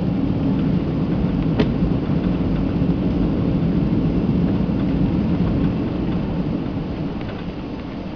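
Boeing 767 cabin noise while taxiing: a steady low rumble of the jet engines and the wheels rolling over the concrete, with one sharp click about a second and a half in. The rumble eases off near the end.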